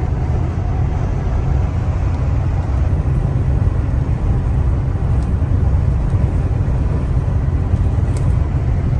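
Steady low rumble of a moving vehicle, road and engine noise with no break.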